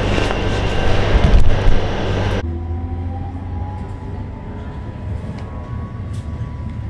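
Madrid Metro train running: a loud rumble and rattle that cuts off suddenly about two and a half seconds in, giving way to a quieter low rumble with a faint whine.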